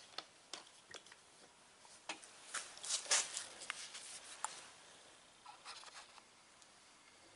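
Faint clicks and short rubbing noises of a plastic bottle being handled against a plastic headlight housing, busiest in the middle.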